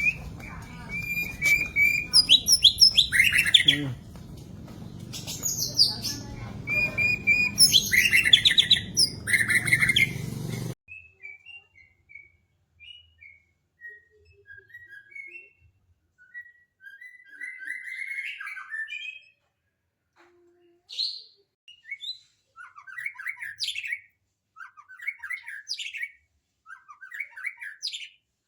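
White-rumped shama singing a varied song of loud whistles, chirps and rapid trills. About eleven seconds in, the background hiss cuts out abruptly and a quieter, sparser run of short whistled notes and trills follows.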